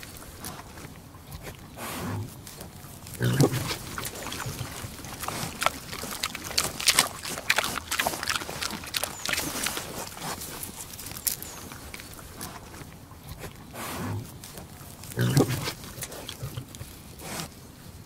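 Pig eating: wet munching and crunching of chewed food, with a run of dense clicky chewing in the middle and low grunts a few seconds in and again near the end.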